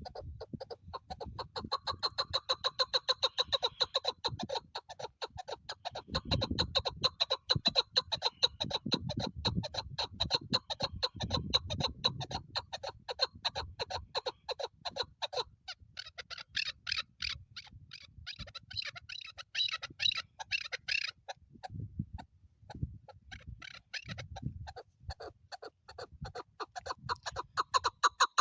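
Female chukar partridge calling: a long, fast run of repeated clucking notes, several a second, turning into a higher, scratchier stretch about 16 seconds in, then back to the steady run. Low rumbles sound underneath at times.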